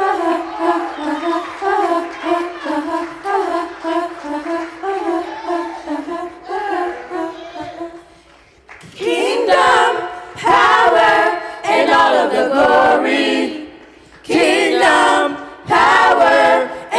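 Choir singing a worship song: softer held notes for about the first eight seconds, then loud full-voiced sung phrases from about nine seconds in.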